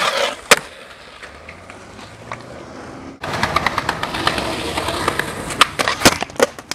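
Skateboard tricks: a board grinding along a ledge with a sharp clack about half a second in, then from about three seconds in, wheels rolling on pavement with small clicks and a loud clack about six seconds in as the board strikes a brick ledge.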